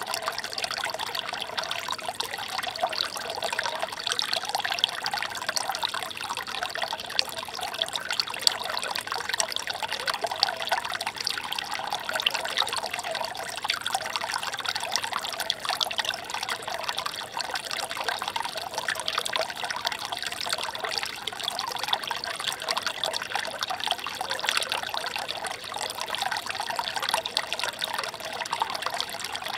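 Shallow stream water trickling and babbling steadily, a light, bright rush of many small splashes with no low rumble.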